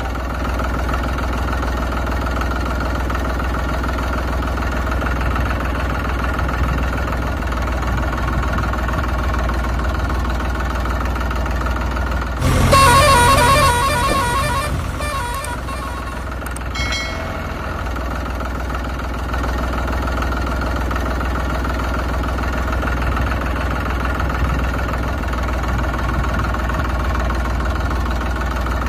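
Steady low drone of a tractor engine running, with a louder horn-like honk about halfway through that fades away over a few seconds.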